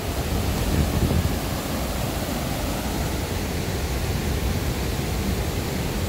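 Steady rushing roar of a large waterfall, the 38-metre Cascada El Meco, in heavy flow.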